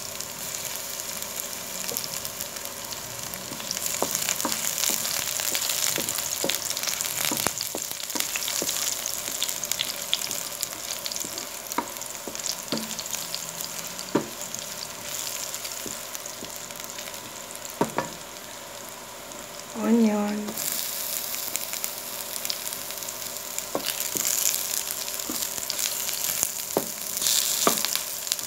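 Chopped garlic sizzling in hot oil in a nonstick wok, stirred with a wooden spatula that clicks and scrapes against the pan now and then. About two-thirds of the way through the sizzle grows louder as sliced onion goes in.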